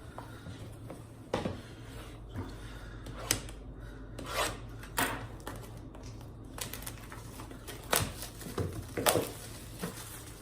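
Hands opening a sealed trading-card box and its plastic one-touch card case: scattered sharp clicks and a few short scraping swishes of cardboard and plastic being handled.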